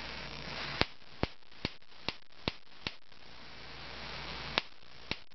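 High-voltage output of three flyback transformers wired in series, hissing steadily and arcing to the end of a gutted compact fluorescent bulb in sharp snapping sparks. The first spark comes about a second in, followed by a run of about two or three a second. After a stretch of hissing alone, two more snap near the end.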